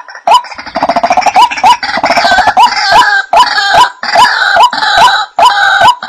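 Recorded rail calls played as a bird-trapping lure: a short, sharp call repeats about two to three times a second, and from about half a second in a second bird's harsh, rapid chattering overlaps it until near the end.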